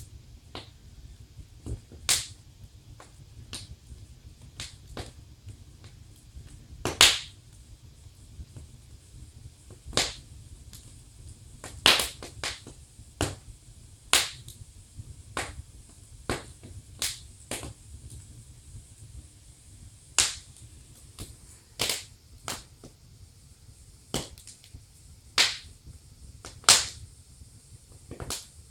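Wood fire in a fireplace crackling: sharp, irregular pops and snaps, roughly one every second or so with a few much louder cracks, over a faint low steady rumble.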